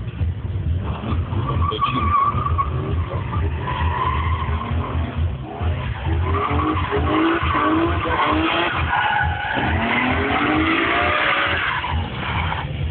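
Drift car engine revving hard in repeated rising sweeps as the car slides, with its tyres squealing and skidding on tarmac.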